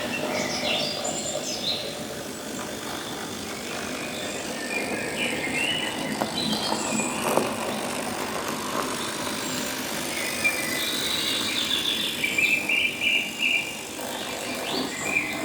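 N-scale narrow-gauge model train running on its track, with an intermittent high squeal over a steady running noise.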